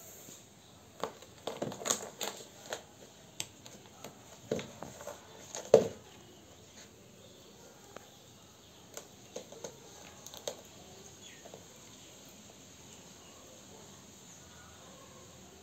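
Kitten playing with a sneaker on a concrete floor: a run of small taps, knocks and scuffs as the shoe and paws move, the loudest a single thump about six seconds in, with a few more taps around ten seconds, then only a faint steady background.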